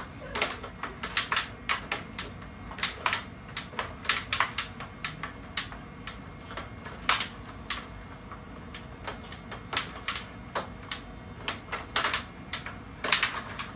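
Small plastic puck clacking against plastic mallets and the rails of a toy tabletop hockey game, in an irregular run of sharp clicks with a quick flurry near the end.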